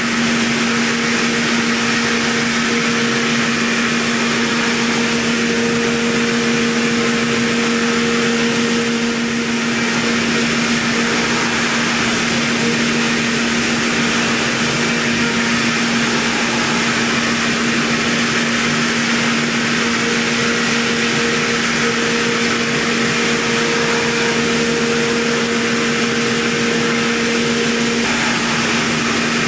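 A Mikron VCE800ProX CNC milling machine's spindle running while a small end mill cuts a metal plate: a steady machining hum with a higher tone that fades out for a while in the middle and stops near the end, over a constant hiss.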